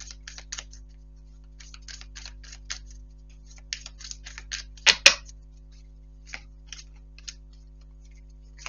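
Tarot cards being shuffled and laid on the table: runs of quick, light papery clicks, with two louder, sharp knocks about halfway through.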